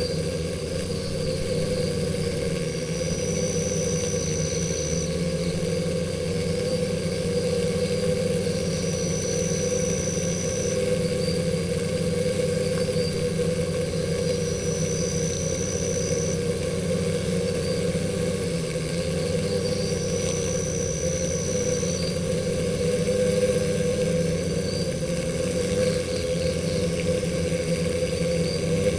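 Stingless bees buzzing at their nest hole: a steady low hum. Over it, a high thin tone of about two seconds repeats roughly every six seconds.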